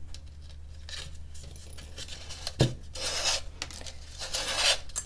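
Calf leather lace rasping as it is drawn through a hole in a dried gourd's rim, in several rubbing strokes. A single sharp knock about two and a half seconds in.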